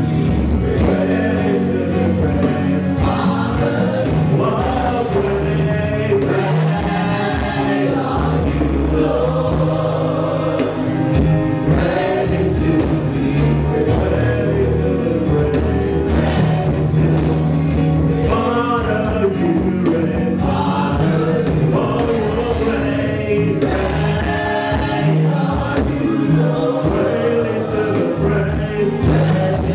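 Live gospel praise music: a group of voices singing over a band with steady bass notes. The sound is a bit crackly, since it was recorded through the camera's own microphone.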